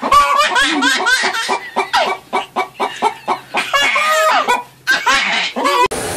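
People laughing hard in quick, high-pitched peals, one after another; the laughter cuts off suddenly near the end.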